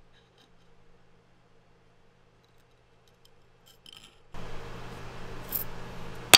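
Faint clicks from handling an old wooden hammer handle, then a hiss with a low hum that starts suddenly about two-thirds of the way through, and a sharp clink right at the end.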